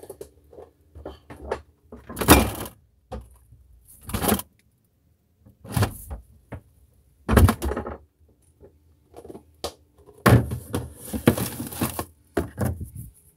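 Refrigerator door being shut and opened again, heard from inside the fridge: a series of loud thuds and knocks, with the bottles in the door shelf jostling.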